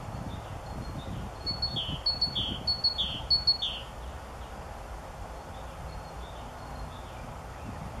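A small songbird sings a two-part phrase, a short high note then a downward slur, four times in quick succession, with fainter repeats later. Under it runs a low wind rumble.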